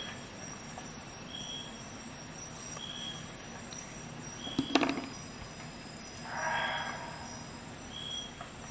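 Steel Engineer Neji-saurus PZ-58 screw pliers being handled: a single sharp metal click about halfway through, then a brief rustle. Behind it a faint short high beep repeats about every second and a half over a low steady hum.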